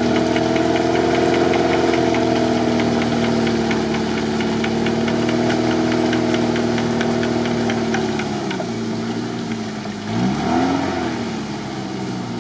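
Off-road SUV's engine running steadily under load as the vehicle crawls through deep mud, with a light rapid ticking. The engine note eases off about eight seconds in.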